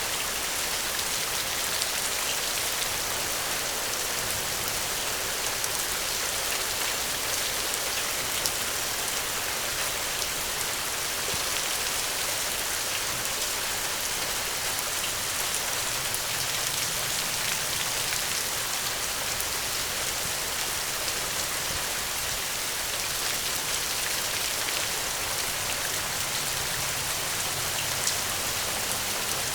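Steady rain falling: an even hiss with scattered small sharp ticks of drops.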